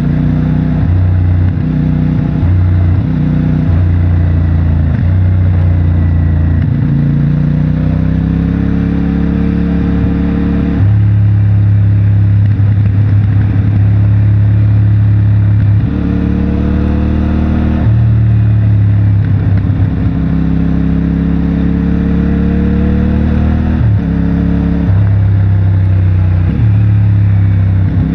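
CFMOTO 450MT's parallel-twin engine through its stock exhaust, under way. The revs climb in long rises and drop back sharply at several gear changes, with choppier throttle changes in the first few seconds.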